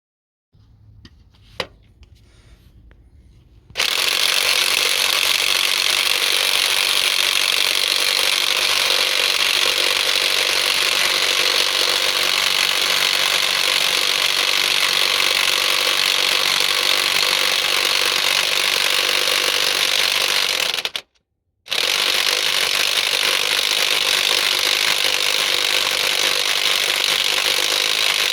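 Half-inch electric impact wrench hammering continuously on a stuck crankshaft bolt, trying to break it loose. It starts a few seconds in, stops briefly near the end, and starts again.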